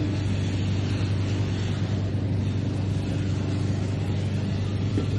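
Flying carousel ride running: a steady low machine hum with a thin higher tone over an even rushing noise.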